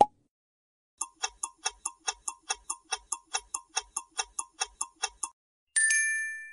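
Quiz countdown-timer sound effect: rapid clock ticking, about five ticks a second for some four seconds, then a bright chime that rings and fades as the correct answer is revealed. A short pop sounds right at the start.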